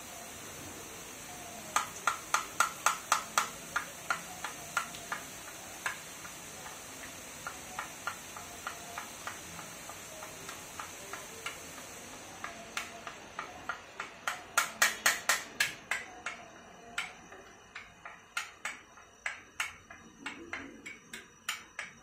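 Steel ladle tapping on a perforated boondi skimmer held over a kadai, knocking gram-flour batter through the holes into hot oil. The taps are sharp and metallic, in quick runs of several a second, with the steady sizzle of batter frying in oil beneath.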